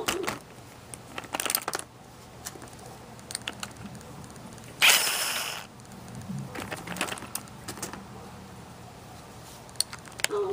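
Hand ratchet and socket working bolts on a Honda GX160 engine: scattered light clicks and metal clinks in short runs, with a brief harsh rasp about five seconds in.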